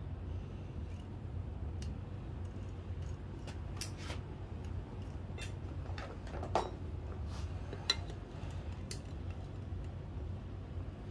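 Light metallic clicks and clinks of hand tools and small engine parts being handled, scattered irregularly, the sharpest about two-thirds in, over a steady low hum.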